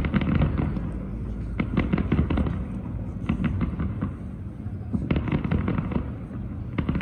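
Fireworks display going off: clusters of rapid bangs and crackles, arriving in about five waves a second or two apart.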